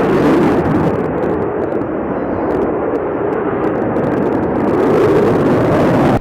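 Sukhoi Su-35 fighter's twin turbofan engines passing in a flying display, a loud, dense, steady noise that dips a little midway, swells again near the end and then cuts off abruptly.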